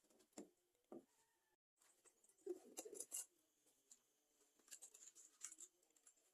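Faint food-preparation handling noise: scattered small clicks, taps and scrapes, with the sound cutting out briefly about a second and a half in.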